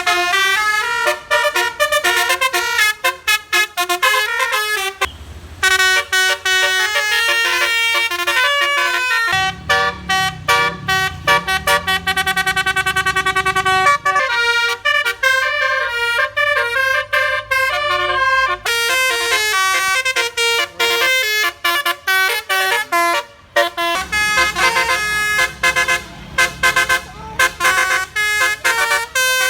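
Bus basuri telolet horn playing quick melodies of stepped notes in phrase after phrase, with a low rumble underneath at times.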